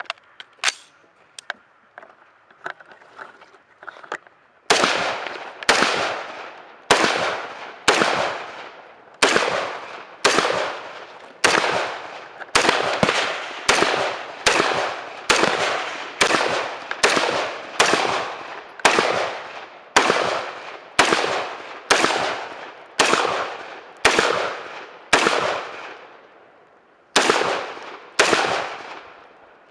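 A steady string of single gunshots at a shooting range, about one a second and a little quicker in the middle, each ringing out with a long echo. Before the shots, about four seconds of faint clicks and quieter pops.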